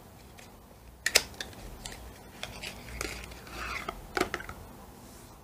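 Small cardboard carton being opened by hand and a liquid foundation bottle slid out of it. There are sharp clicks of the carton about a second in and again a little after four seconds, with light rustling of the packaging in between.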